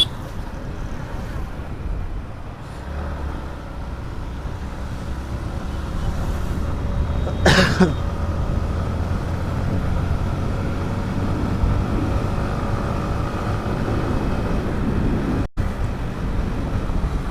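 Yamaha MT-15's single-cylinder engine pulling steadily, its note slowly rising as the bike gathers speed. A brief sharp noise cuts across about seven and a half seconds in, and the sound cuts out for an instant near the end.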